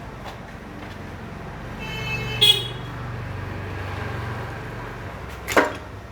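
Street traffic: a motor vehicle passes with a short horn toot about two and a half seconds in, then a sharp clack near the end.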